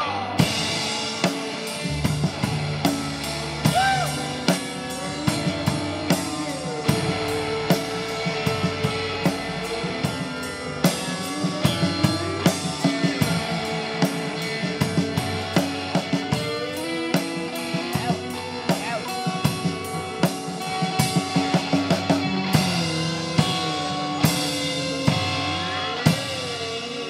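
Live rock band playing an instrumental passage: a drum kit keeps a steady beat under electric guitar, with low bass notes coming in about two seconds in.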